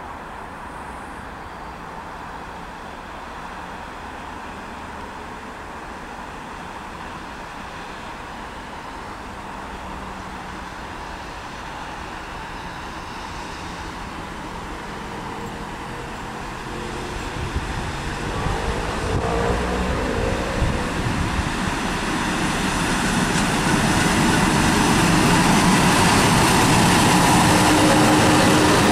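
Czech class 754 diesel-electric locomotive hauling a passenger train, approaching and passing close by. Its engine and the wheels on the rails grow steadily louder over the second half, with a few sharp clicks along the way.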